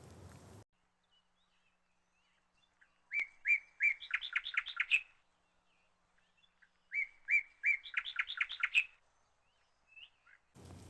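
A small bird singing two matching phrases a couple of seconds apart. Each phrase starts with a few separate notes, then quickens into a fast run of rising-and-falling notes. The background noise cuts out abruptly just before the song and comes back near the end.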